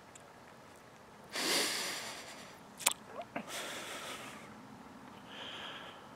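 A man sniffing and breathing heavily through the nose, a long noisy breath about a second in and a second, weaker one just past the middle, with two small mouth clicks between them. He is choked up with emotion and lost for words.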